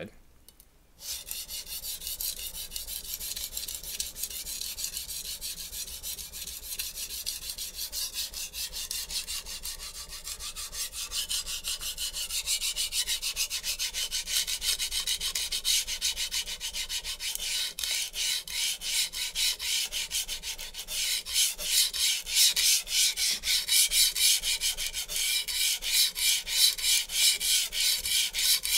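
HAP40-steel chef knife scraping on a coarse 120-grit sharpening stone in rapid back-and-forth strokes, raising a burr on the edge. The strokes begin about a second in and grow louder and harsher about two-thirds of the way through.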